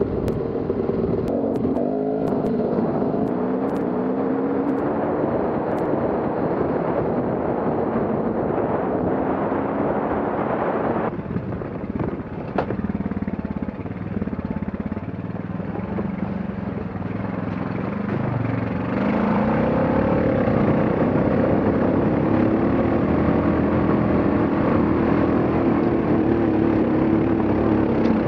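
Off-road dirt bike and ATV engines running and revving, the engine note rising and falling with the throttle. The sound changes abruptly twice, about eleven and nineteen seconds in, and is steadier and louder in the last part.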